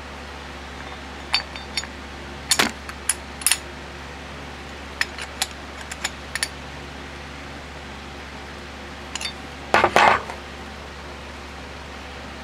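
Small metal parts and tools clinking and tapping on a work surface during brake caliper reassembly: scattered light clinks, with a louder clatter near the end.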